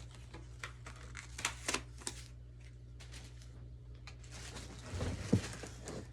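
Plastic wrapping crinkling and rustling as vacuum cleaner parts are unwrapped by hand, with scattered small clicks and taps over a steady low hum. A louder knock comes about five seconds in.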